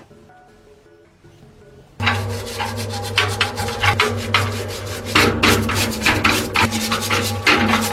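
Repeated rough scraping strokes, like filing or rubbing on a rusty surface, starting suddenly about two seconds in over a steady low hum.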